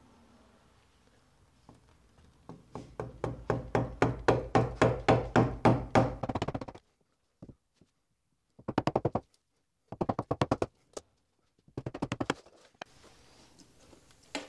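Mallet striking a wood chisel to pare back the top edge of an old timber roof purlin. A steady run of sharp blows at about four a second grows louder for several seconds, then comes in three short, quicker bursts.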